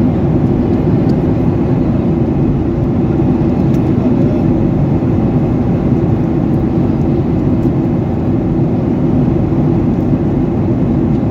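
Airliner cabin noise in cruising flight: a steady, even drone of the engines and rushing air, heard from inside the cabin, deep and unchanging.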